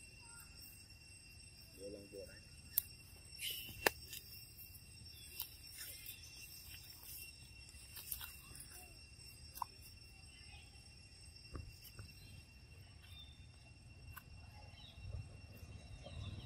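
Faint outdoor ambience: steady high insect drone, with scattered clicks and crackles of dry leaves and twigs as monkeys move over the leaf litter; two sharper snaps about three and four seconds in.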